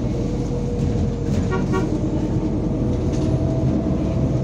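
Inside a MAZ-203 city bus on the move: the engine and drivetrain run steadily under a continuous rumble with a steady hum. About a second and a half in, two short beeps sound in quick succession.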